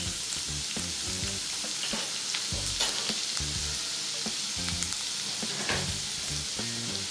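Chopped garlic and ginger frying in hot oil in a kadhai: a steady sizzling hiss with scattered small pops.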